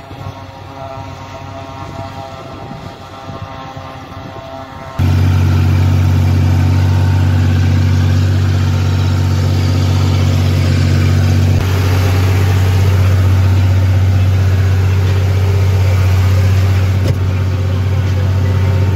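Tractor engine running steadily under load while pulling a forage harvester that chops standing corn for silage. It is heard from behind at first, then from about five seconds in much louder and close up as a deep, steady drone.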